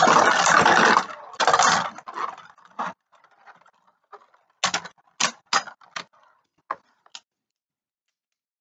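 Beyblade Burst spinning tops (Wonder Valtryek and Spiral Treptune) whirring and grinding against each other and the plastic stadium floor, a loud rattling noise that cuts down about a second in, flares once more briefly and dies away by about three seconds as the battle ends. Then about six sharp separate clicks.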